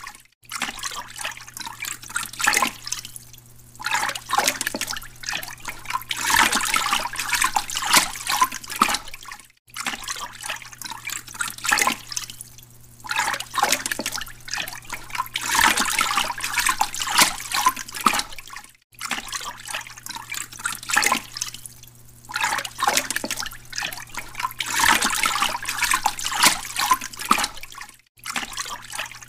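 Aquarium water bubbling and splashing at the surface, swelling and easing every few seconds, over a steady low electric hum from the tank's pump. The sound cuts out for a moment about every nine seconds.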